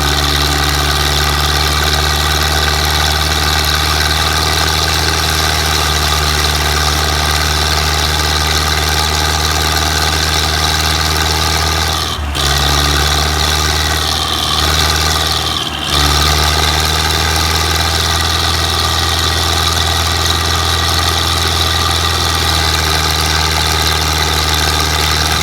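Belarus tractor's diesel engine idling steadily, with a brief dip in level twice in the middle.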